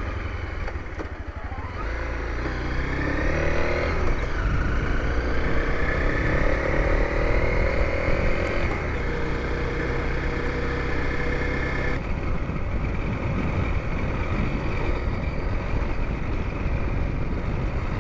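Honda CRF250L's single-cylinder four-stroke engine pulling away, its note rising about two seconds in and dropping back at gear changes near four and nine seconds, then running steadily, with wind buffeting the microphone.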